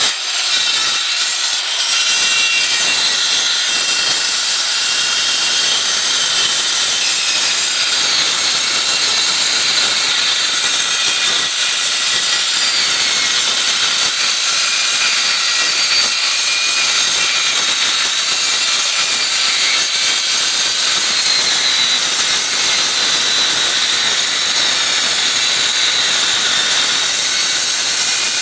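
Circular saw with a Lenox 7-1/4 inch steel-cutting blade cutting through 1/8-inch steel plate: a loud, steady high-pitched whine over a grinding hiss, the pitch wavering slightly as the blade runs through the metal. The cut goes smoothly without bogging down.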